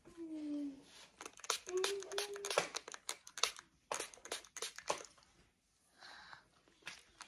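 Hand-pumped trigger spray bottle spritzing water onto a toddler's hair in a rapid series of short sprays between about one and five seconds in, for moisturizing. Two brief hummed voice sounds come near the start.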